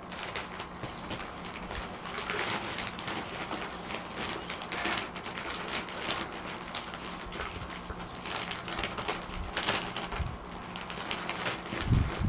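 Potting soil pouring from a plastic bag into a plastic plant pot, with the bag rustling and crinkling, and a low thump near the end.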